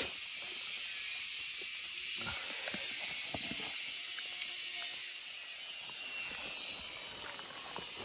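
Steady high hiss of forest ambience, with a few light knocks and leaf rustles as a leaf-wrapped bamboo cooking tube is handled.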